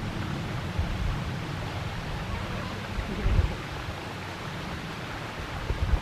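Outdoor forest ambience: a steady rushing hiss with low, gusty rumbling from wind on the microphone, swelling most about three seconds in.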